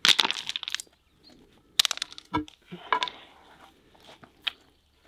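Large natural slate slab being tipped over and set down on soil and gravel chippings. Gravel crunches and rattles under and against the stone, a short dull knock comes about two and a half seconds in as the slab settles, and smaller scrapes and clinks follow as it is shifted into place.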